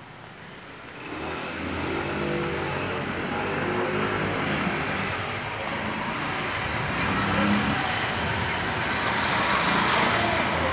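Motor vehicle engine running close by on the street, with tyre and road noise. It builds up about a second in and stays up, growing slightly toward the end.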